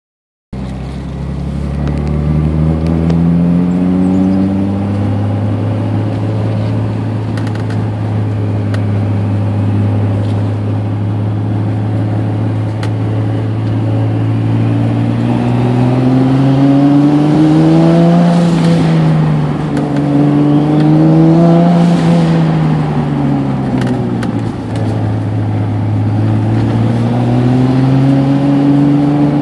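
Turbocharged Honda NSX V6 engine heard from inside the cabin at a moderate cruise, its pitch steady for a while, then rising and falling three times as the car accelerates and eases off along a winding road.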